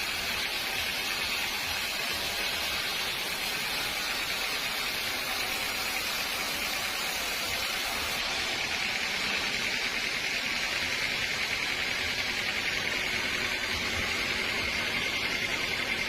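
Sawmill saw running and cutting through a teak log: a steady hiss with a high whine, growing slightly louder about halfway through.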